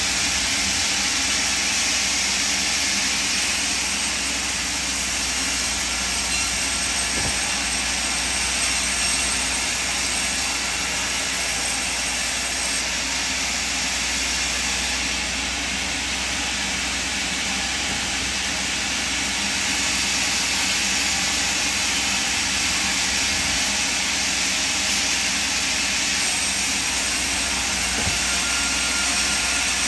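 Large sawmill band saw running and cutting through timber as logs and slabs are fed into the blade, a steady loud noise without breaks.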